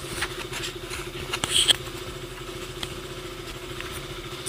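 Motorcycle engine idling steadily, with a brief click about a second and a half in.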